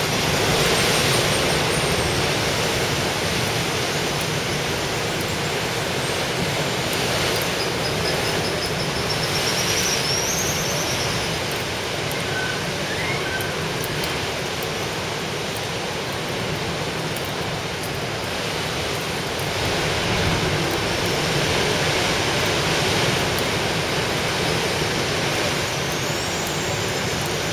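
Ocean surf breaking and churning over rocks: a steady rush of wave noise that swells a little near the start and again about two-thirds of the way through. A few faint high chirps sound now and then above it.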